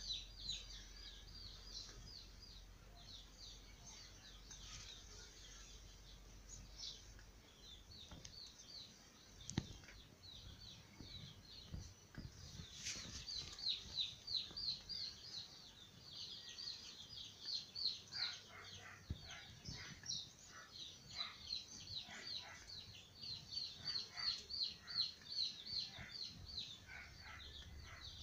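Small birds chirping in rapid, high-pitched runs of short notes, thicker and louder in the second half. A single sharp click about a third of the way through.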